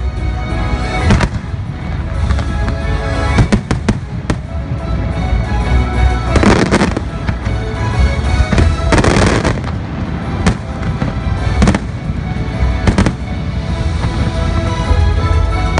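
Fireworks show: aerial shells bursting in a string of sharp bangs and booms, with heavier crackling clusters about six and a half and nine seconds in, over the show's music played through loudspeakers.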